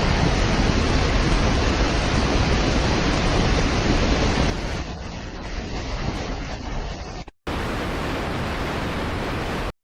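Loud steady rushing of water, as from floodwater pouring through streets. It changes abruptly and gets quieter about four and a half seconds in, cuts out for a moment near seven and a half seconds, then comes back as a steady rush.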